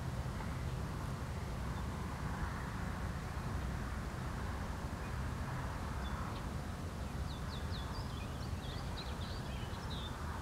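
Steady low outdoor rumble, with a bird chirping in quick, short, high notes over the second half.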